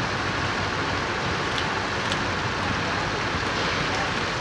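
Water from a burst water main, struck during pile driving, gushing steadily through a gap in steel sheet piling and splashing into the ditch water below.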